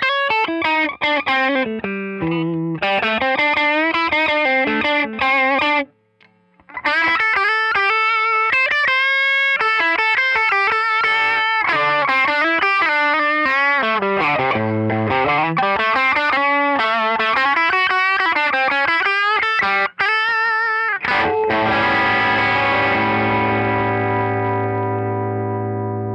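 Kramer Night Swan electric guitar through a Tone King Imperial MK 2 amp on a crunch tone, playing fast single-note runs with a short break about six seconds in. Near the end a full chord is struck and left ringing, slowly fading.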